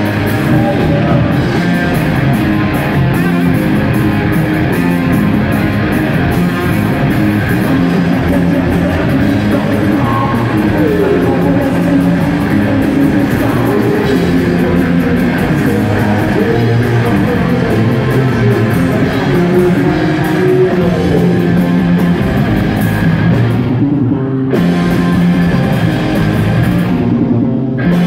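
Punk rock band playing live: distorted electric guitars, bass and drum kit, loud and continuous. The cymbals drop out briefly twice near the end.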